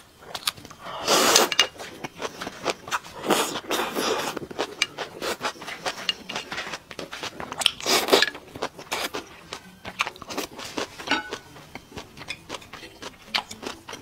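Close-miked eating of spicy food. There are loud slurps about a second in, again around three to four seconds, and near eight seconds as broth is sipped from a spoon. Between them come many small crunching, clicking chewing sounds.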